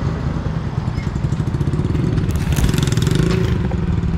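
A small motorcycle engine running close by with a steady, pulsing rumble. It swells for about a second midway through.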